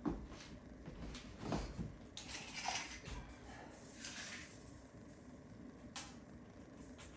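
Quiet handling noises while a clawfoot bathtub is measured with a tape measure: a few light knocks and two brief scraping rustles.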